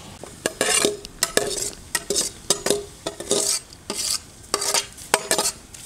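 Rice being scraped and stirred against metal cookware over a pot of boiling water: repeated scrapes and clinks, about three a second, each with a short metallic ring.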